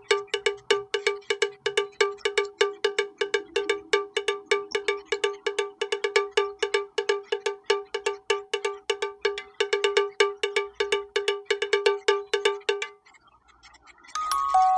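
A cowbell-like metal bell struck rapidly and evenly, about five strikes a second, as an added sound effect. It stops about thirteen seconds in, and after a brief pause a tune of clear chiming notes begins.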